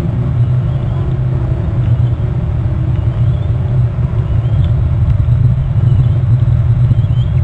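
Loud steady low rumble, with faint short high chirps every second or two.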